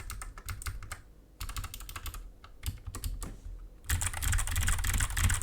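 Mechanical keyboard with Kailh Box Navy clicky switches being typed on, a sharp click with each keystroke. The typing comes in bursts with short pauses, turning fast and continuous for the last second and a half.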